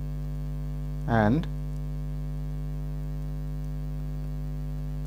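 Steady electrical mains hum, a low buzz that never changes, with one short spoken word about a second in.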